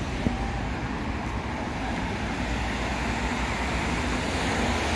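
City road traffic: a steady rush of passing vehicles with a low engine rumble, growing gradually louder. A single sharp click sounds just after the start.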